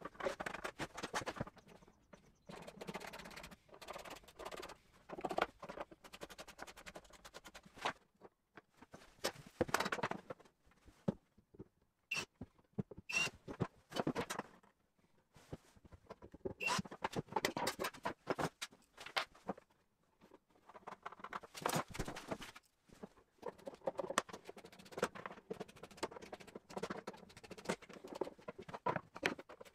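Hand screwdriver driving screws to fit drawer runners inside a plywood cabinet: irregular scratching, small clicks and light knocks, with a few brief pauses.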